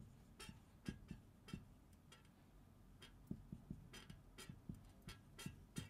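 Marker pen on a whiteboard while words are written: a faint string of short, irregular ticks and taps as the tip strikes and lifts off the board.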